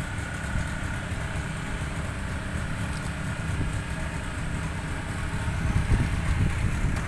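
Boat engine running steadily, a low drone with a faint steady whine above it.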